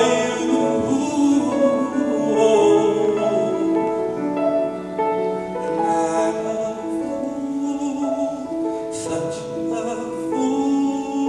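Male vocalist singing with grand piano accompaniment.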